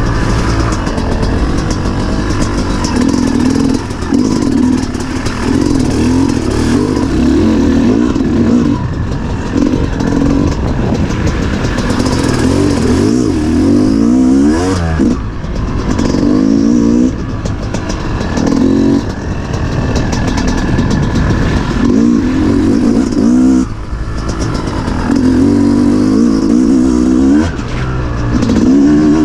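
Off-road dirt bike engine being ridden hard. It revs up and then drops back again and again, the throttle chopped and reopened every few seconds.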